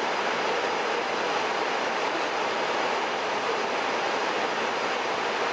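Steady rushing noise inside an airliner's cockpit at cruise: airflow and ventilation noise at a constant level.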